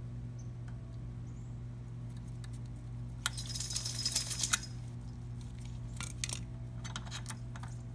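Light metallic clinking and jingling as needle-nose pliers work the footpeg's pin and spring loose on a Buell XB motorcycle: a run of clinks a little over three seconds in, lasting about a second, then a few single clicks, over a steady low hum.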